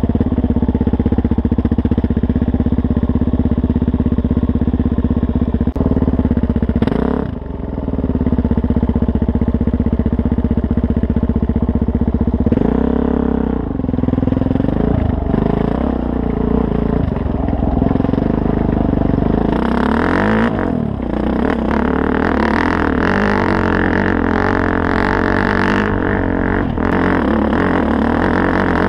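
Suzuki DR-Z400S single-cylinder four-stroke engine running at a steady throttle, its pitch dipping and rising several times past the middle as the throttle is eased off and opened again. In the last third a rougher rattle and hiss join in as the bike runs over a rocky, rutted dirt track.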